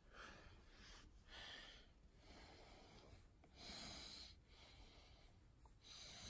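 Near silence with a few faint, soft breaths close to the microphone: one about a second in, another near four seconds, and a third near the end.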